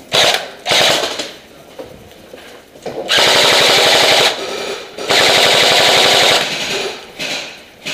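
Airsoft gun firing on full auto: two short bursts near the start, then two long bursts of rapid, evenly spaced shots, each about a second and a half.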